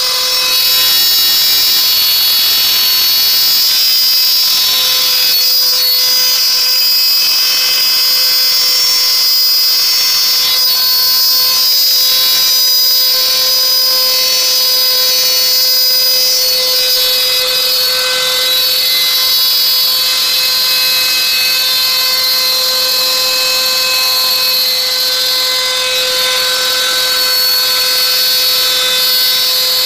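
INGCO trim router, mounted as the spindle of a CNC router, running at speed and milling a groove through a 4 mm aluminium composite panel. Steady high whine with cutting noise, unbroken throughout.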